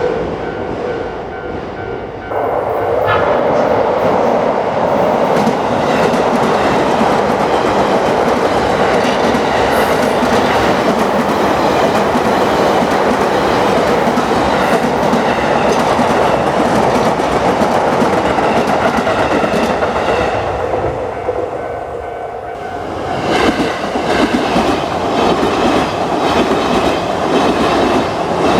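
Electric commuter train passing close by, a long loud run of rail and wheel noise. About twenty seconds in the noise dips briefly, then rises again with quick, evenly spaced clacking of wheels over rail joints.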